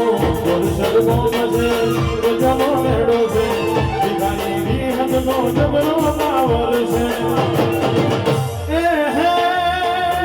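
Gujarati devotional music played live: a steady drum beat under a held melody. A new wavering melodic line comes in about eight and a half seconds in.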